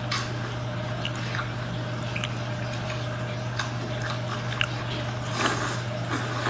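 Wet mouth sounds of eating whole small octopus in chilli sauce: sucking the tentacles in and chewing, with scattered small smacks and a longer slurp about five seconds in. A steady low electrical hum lies underneath.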